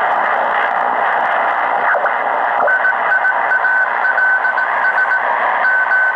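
Tecsun PL-680 shortwave receiver in lower-sideband mode on the 40 m amateur band, giving a loud steady hiss of band noise, with a couple of clicks as it is retuned about two seconds in. From then on a Morse code (CW) signal comes through as a single tone keyed on and off in dots and dashes.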